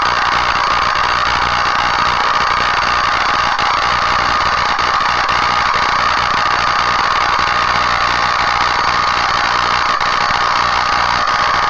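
Small homemade Tesla coil running, its spark at the top terminal giving a loud, steady buzz with a whining tone and a low hum underneath.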